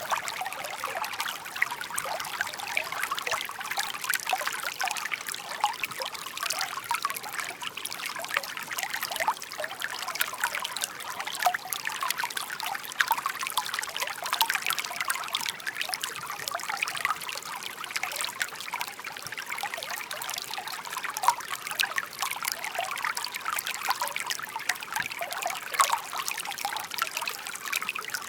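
Shallow stream babbling over stones, a continuous trickle of many small splashes and gurgles.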